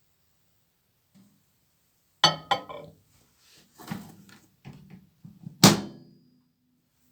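Sharp R242ww microwave oven being handled: two sharp clacks, a run of lighter knocks, then a loud clunk with a short metallic ring near the end, as its door is opened and shut.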